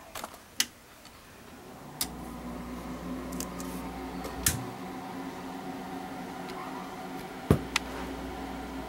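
A few sharp clicks of a computer mouse, spaced out, with a low steady hum that sets in about two seconds in.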